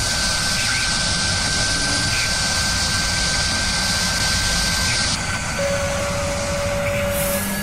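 Double-end tenoning machine running with a steady mechanical whir and a thin constant whine. A high hiss drops away about five seconds in.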